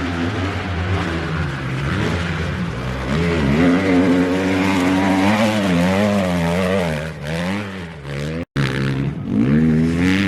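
Motocross dirt bike engines revving on the track, their pitch rising and falling repeatedly with the throttle. The sound cuts out for a split second about eight and a half seconds in.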